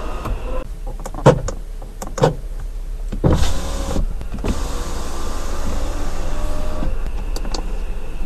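Jaguar car's electric window: switch clicks on the door panel, then the window motor running steadily for about three and a half seconds and stopping, followed by another couple of clicks.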